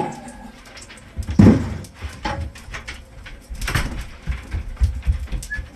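A large white dog making short vocal sounds, the loudest about a second and a half in, with knocks and scuffling around it.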